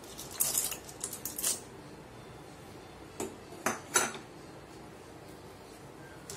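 Dry macaroni rattling out of a small ceramic bowl into a pan of water, a clatter of about a second near the start, followed three to four seconds in by three sharp clinks of kitchenware.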